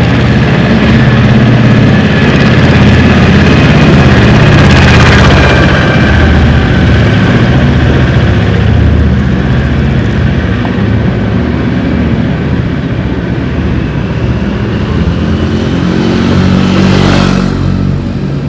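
Vehicle engines running steadily, with something passing close by about five seconds in and again near the end.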